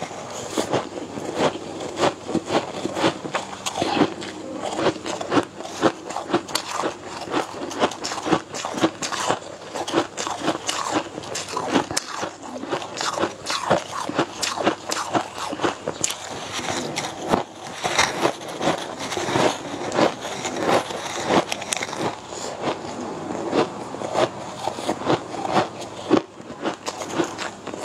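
Close-miked chewing and mouth smacking of a person eating purple rice with chopsticks: a steady run of small wet clicks and smacks.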